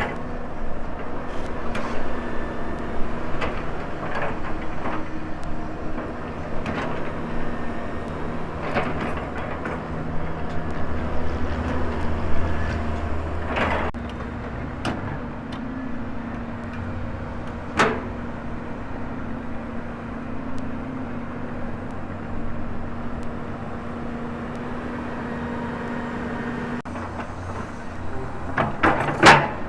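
Volvo excavator's diesel engine running steadily, with scattered metallic clanks and knocks from the working machine. There is a sharp clank just past halfway and a louder burst of clanks near the end.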